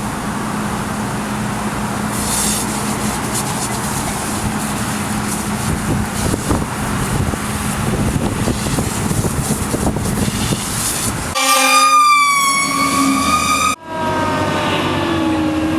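A vehicle's engine runs steadily with road noise. About eleven seconds in, a fire truck's warning sounds begin: a held, horn-like tone, then after a brief cut a siren wail falling in pitch.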